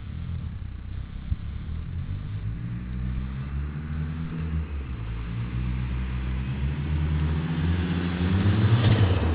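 Mitsubishi Starion's four-cylinder engine pulling under load at speed. The revs climb, drop back briefly about four and a half seconds in, then climb again as wind and road noise build. The uploader says the engine is misfiring.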